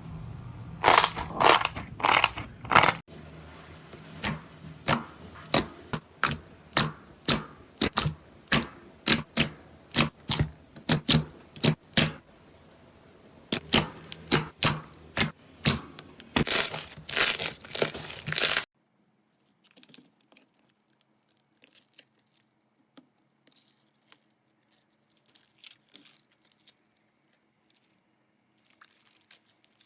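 Slime being squeezed and pressed, giving loud crackling and crunching, then a run of sharp pops about two a second. About two-thirds in it cuts abruptly to much fainter crinkling.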